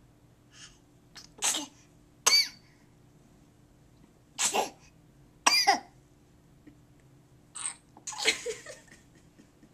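A run of short, sharp sneeze-like bursts, about five loud ones with fainter ones between, each a second or more apart.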